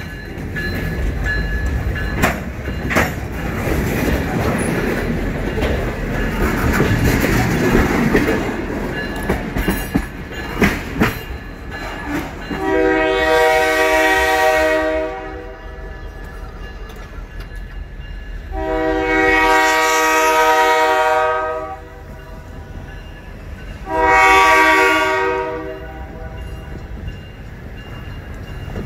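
Covered hopper freight cars rolling past on jointed track, wheels clattering and clicking over the rails. From about 13 seconds in, the departing locomotive's chime horn sounds the grade-crossing signal: two long blasts, a short one, and the final long blast beginning at the very end.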